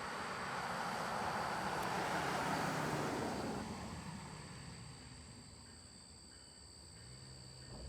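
A vehicle passing close by: a rush of noise that swells over the first two or three seconds and fades away by about four seconds in, over the steady high chirping of crickets.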